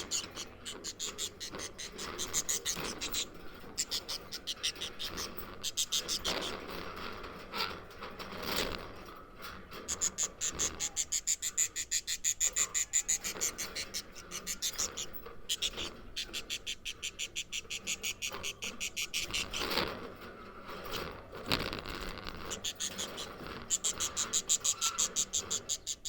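Budgerigars chattering: a rapid, continuous run of high, buzzy pulsed chirps, broken by a few brief louder calls.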